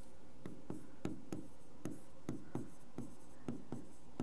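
Chalk writing on a chalkboard: a string of short taps and scratches, two or three strokes a second, as the words are written out.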